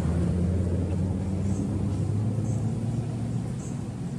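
A motor vehicle's engine running with a steady low hum, slowly fading toward the end.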